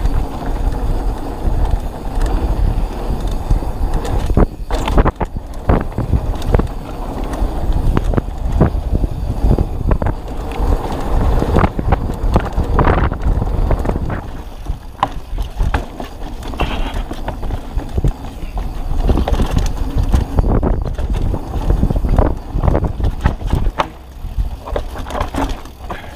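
Full-suspension 29er mountain bike descending a dirt and rock trail: wind buffeting the microphone over the tyres rolling on dirt, with frequent knocks and rattles from the bike as it hits bumps and rocks.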